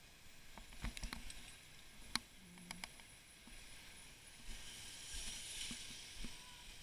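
Faint, muffled knocks and rattles from a bicycle ride over paving stones, bunched in the first three seconds, then a soft hiss for a second or two about five seconds in.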